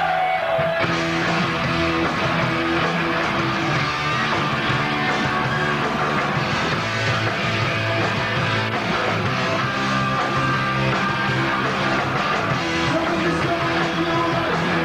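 Heavy metal band playing live, with electric guitars over bass and drums, heard from an old video-tape recording. The sound thickens about a second in as the full band comes in.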